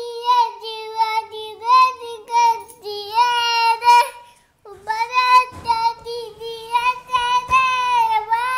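A young child singing in a high voice, holding fairly level notes, in two stretches with a short break about four seconds in.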